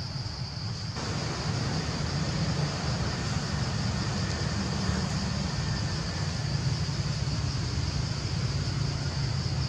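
Steady outdoor background noise: a low rumble with a steady high-pitched drone above it. It grows a little louder about a second in. No distinct call or knock stands out.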